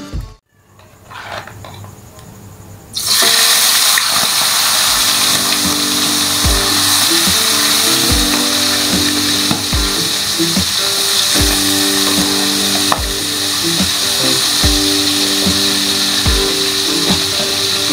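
Whole shrimp frying in hot oil in a wok: a loud, steady sizzle that starts suddenly about three seconds in. Background music with a steady beat plays throughout.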